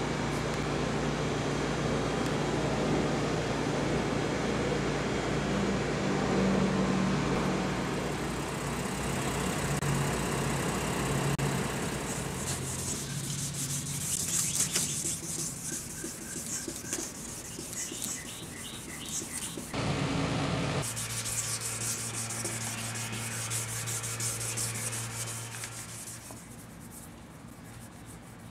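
Sanding and rubbing on a foggy plastic headlight lens during restoration, a continuous rough scrubbing over a steady low hum. It gets quieter near the end.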